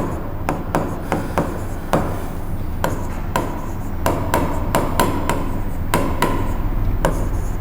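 A series of sharp, irregular taps and knocks, about two or three a second, over a steady low hum.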